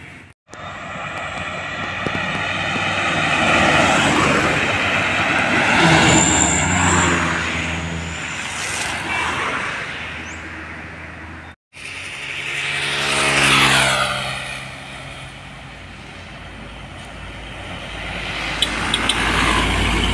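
Heavy diesel trucks passing close by on a road, one after another. Each engine grows louder as it nears and drops in pitch as it goes by. The sound breaks off abruptly twice.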